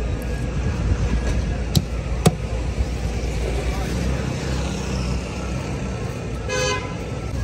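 Steady low rumble of street traffic, with two sharp knocks of a knife against the wooden chopping block as fish is cut, about two seconds in, and a brief high-pitched tone near the end.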